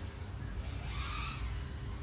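iFlight AOS 3.5 V5 FPV quadcopter's motors and propellers whining, fainter than just before, with a brief rise in pitch about a second in over a steady low rumble.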